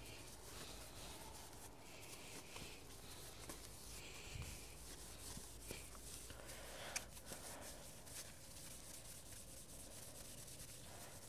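Faint cloth rubbing and wiping over a bare alloy wheel, as it is wiped down with degreaser, with scattered light clicks of handling.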